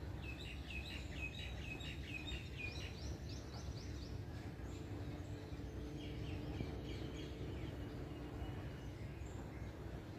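Small birds chirping in quick runs of short, high repeated notes, a few a second, in two spells, over a faint steady low hum and background noise.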